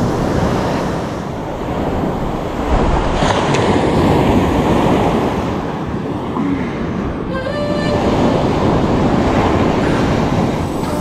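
Wind buffeting the microphone over the steady rush of surf breaking on a sandy beach.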